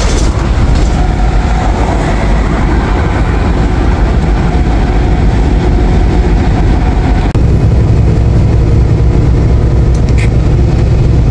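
Inside a semi-truck's cab at highway speed: the diesel engine and tyres make a steady low drone, which steps up louder about seven seconds in.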